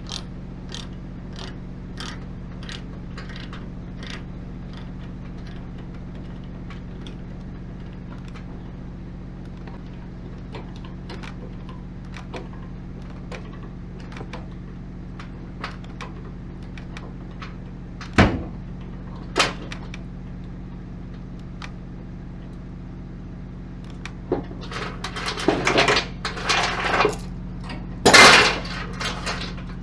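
Ratchet chain binder clicking as its handle is cranked to tighten a load chain, about two clicks a second at first and then slower and more scattered. There are two sharp metal knocks about two-thirds of the way in and a loud burst of metal clattering near the end, all over a steady low hum.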